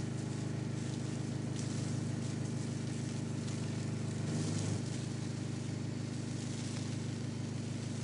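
Small gas-engine sprayer pump running steadily, with the hiss of water and foam jetting from a hose-end foam sprayer. The engine note shifts briefly about halfway through.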